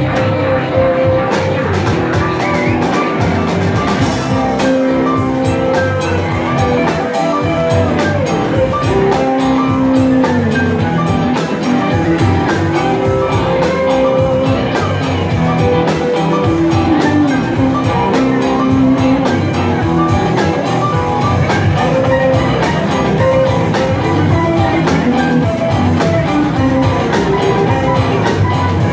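Live rock band playing: electric guitars, bass, drum kit and keyboards together.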